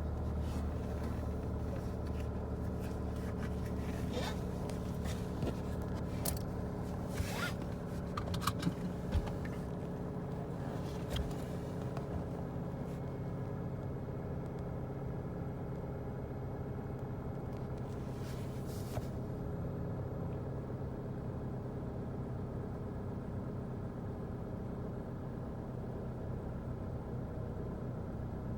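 Pontiac car engine idling steadily, with scattered clicks and rustles of handling in the first ten seconds or so and a short scrape about two-thirds of the way through.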